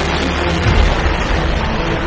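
Roar of a ship-launched missile's rocket motor as it climbs away: a steady rushing noise with a low thump just under a second in, and background music faintly underneath.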